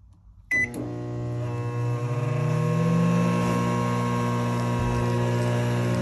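Samsung microwave oven starting about half a second in with a short keypad beep, then running with a steady, deep, heavy hum that grows a little louder over the first couple of seconds. The oven is not heating, and the technician takes this hum as usually, though not always, pointing to a faulty magnetron.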